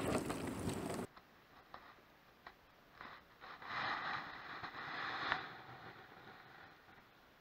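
Wind and water noise out on the boat that cuts off abruptly about a second in. Then faint scraping and rustling with a few small clicks.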